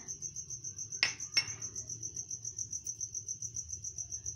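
A cricket trilling, a steady high-pitched chirp pulsing rapidly. About a second in, two short clatters come from ground spices being added to a steel mixing bowl.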